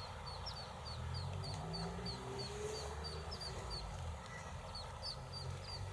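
Mallard ducklings peeping: a rapid series of short, high peeps, about three a second, over a low background rumble.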